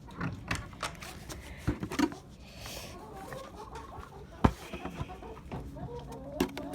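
Hens clucking softly as they come over, with scattered knocks and clatter, one sharp knock about halfway through.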